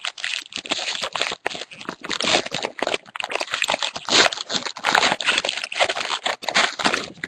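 Foil wrapper of a trading card pack crinkling and crackling as hands tear it open and handle it, dense with sharp little crackles; it stops suddenly at the end.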